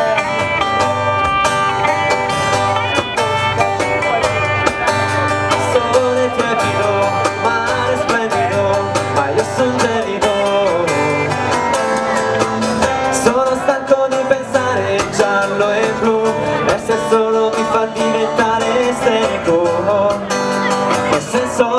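Live band playing the instrumental opening of a surf-style pop song: acoustic and electric guitars, electric bass and a drum kit with a steady beat.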